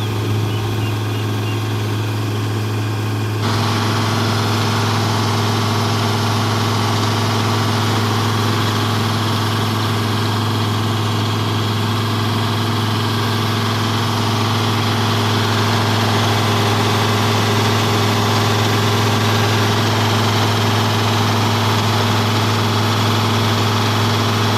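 Combine harvester running steadily with a strong low engine hum. About three seconds in the sound gets louder and busier, with more clatter and hiss over the hum.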